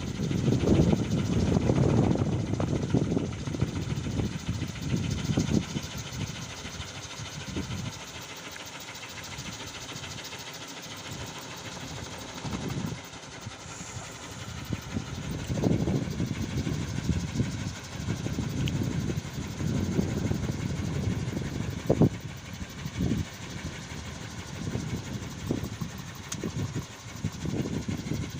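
Wooden kolecer, a wind-driven propeller on a pole, spinning in the wind with a loud, engine-like droning hum that swells and fades with the gusts; it drops lower for several seconds midway.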